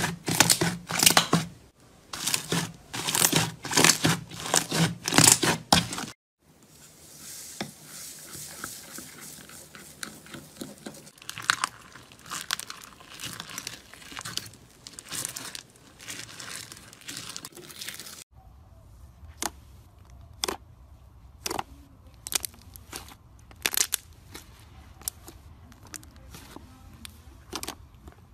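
Slime being handled, in three short clips. First, loud waves of crackling pops as a hand presses a mound of blue slime. About six seconds in, a softer continuous fine crackle as a spatula stirs fluffy slime in a glass bowl. After about eighteen seconds, sparse sharp pops as fingers squeeze and pull slime.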